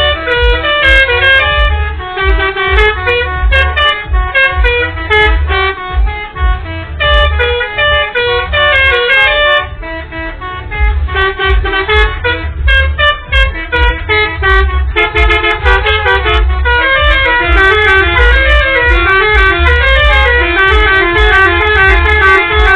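Indonesian bus 'telolet' horns, multi-tone musical air horns, playing fast runs of stepping notes over and over, with a low rumble underneath.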